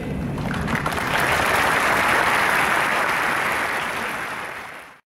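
Audience applauding, swelling about a second in and then fading out to silence near the end.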